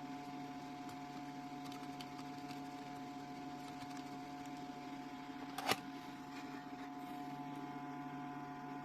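Steady low electrical hum from bench equipment, with one sharp click a little over five seconds in.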